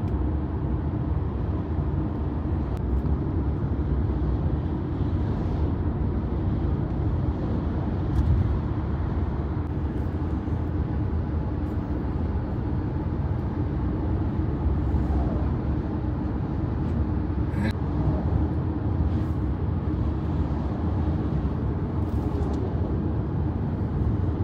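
Steady low road and engine rumble heard from inside a moving car's cabin, with one brief click about two-thirds of the way through.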